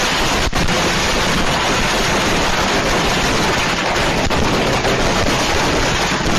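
Loud, steady static noise, an even hiss spread evenly from low to high.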